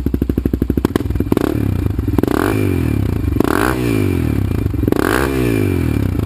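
Honda TRX400EX single-cylinder four-stroke quad engine, with an FMF exhaust and a stage 1 Hot Cams cam, idling with a steady thump, then revved up and back down four times before settling to idle again near the end.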